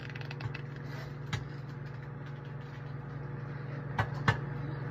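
A steady low hum with a faint higher tone above it. There are a few light ticks near the start, a click about a second and a half in, and two sharper knocks near the end.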